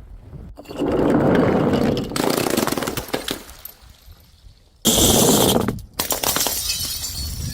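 Glass bottles breaking and crunching, with a sudden loud shatter of glass about five seconds in.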